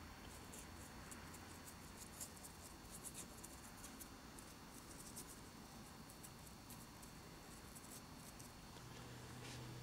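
Faint scratching and scattered light ticks of a small paintbrush being dabbed and scrubbed into the crevices of a cast rock face. A low steady hum comes in near the end.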